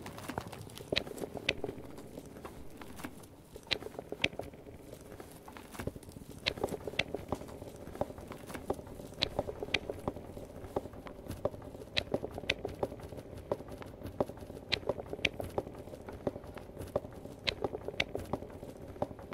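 Improvised experimental foley: a dense, irregular stream of sharp clicks and taps, some louder and brighter than others, over a low sustained drone.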